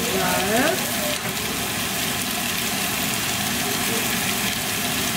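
Kitchen extractor hood fan running on a high setting: a steady rushing noise, with a brief voice sound near the start.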